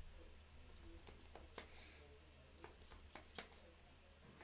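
Faint, scattered light clicks of trading cards being handled and set down on a table, over a low steady hum.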